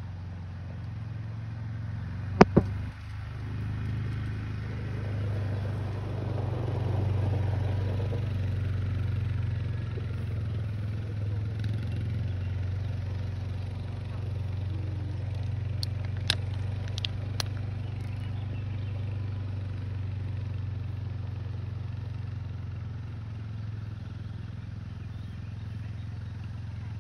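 ATV engine running at a distance, a steady low drone that swells a few seconds in and then eases off. Two sharp clicks about two and a half seconds in, the loudest sounds, and a few fainter ones around sixteen to seventeen seconds.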